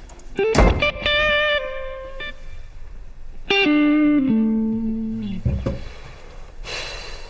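Background music: plucked guitar notes held and stepping between pitches, with new notes struck about half a second, a second and three and a half seconds in.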